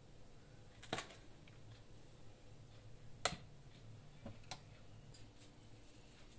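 A few sparse, sharp clicks and light knocks of metal kebab skewers being handled and laid on a tray, the loudest a little after three seconds in, over faint room hum.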